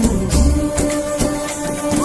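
Background music: a melody of held, gliding notes over a regular percussion beat.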